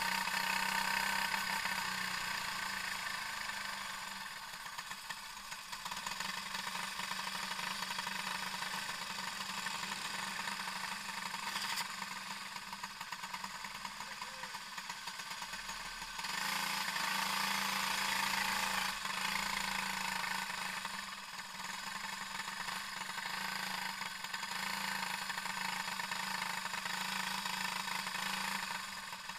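Racing kart's engine idling and running at low speed as the kart rolls slowly, briefly louder a little past halfway.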